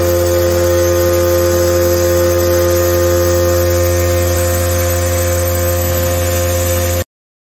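Vibratory stress relief exciters, electric motors clamped to a welded steel plate, running and shaking the plate, a loud steady hum and buzz. This is the plate being vibrated to relieve the welding stresses. The sound cuts off suddenly near the end.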